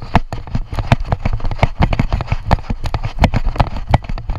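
Running footsteps through grass and undergrowth, heard close on a chest-mounted camera that jolts with every stride, giving a fast, uneven string of thuds and knocks.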